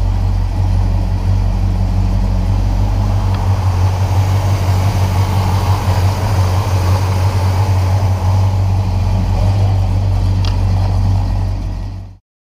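1967 Oldsmobile 442's 400 cubic-inch V8 idling steadily with a deep, slightly uneven low note. The sound cuts off suddenly near the end.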